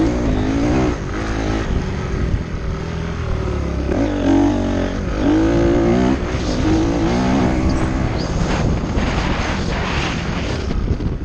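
Motocross dirt bike engines revving, their pitch rising and falling repeatedly as the throttle opens and closes.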